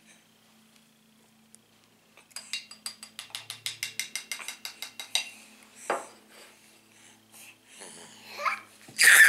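A baby's short babbling sounds, then, just before the end, the start of a loud, harsh baby scream. Earlier there is a fast run of light clicks, about seven a second, lasting about three seconds.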